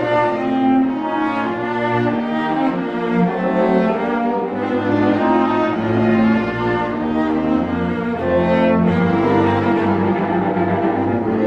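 A chamber orchestra plays with a full string section, holding sustained bowed notes over a strong low bass line from the cellos and double basses.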